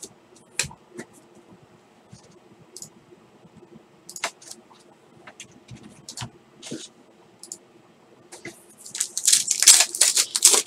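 Scattered light taps and clicks of trading cards being handled and set down, then a burst of loud crinkling and tearing as a trading-card pack wrapper is ripped open, the loudest sound, in the last two seconds.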